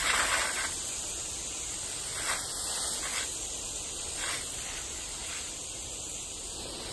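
Garden sprinkler spraying a fine mist of water: a steady hiss with louder swishes every second or so.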